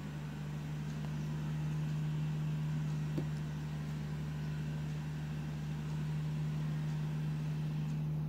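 Steady low machine hum at one fixed pitch, with a single faint click about three seconds in.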